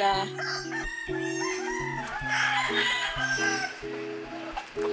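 Gamecock roosters crowing and chickens clucking, over background music with a steady run of low notes.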